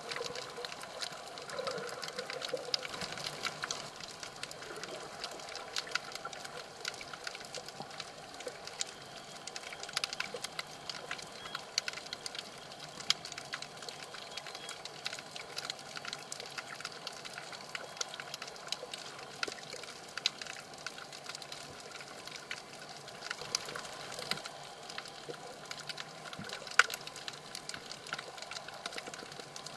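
Underwater reef ambience picked up by a submerged camera: a steady watery hiss with dense, irregular crackling clicks throughout.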